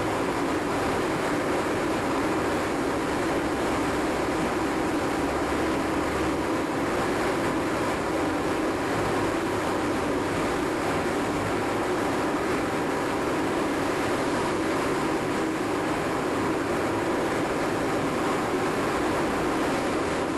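CNC knee mill running steadily while rigid-tapping 8-32 and 1/4-20 holes in 6061 aluminum, an even mechanical whir of spindle and drives with no clear breaks.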